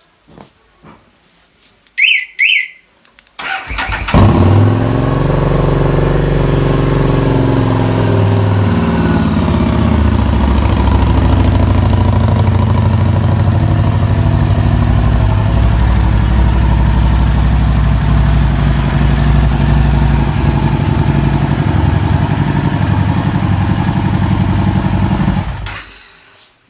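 Two short electronic beeps from the motorcycle alarm, then a Harley-Davidson Street 750's V-twin engine is started by the remote starter. It catches about four seconds in, runs briefly at higher revs, settles into a steady idle, and is shut off near the end.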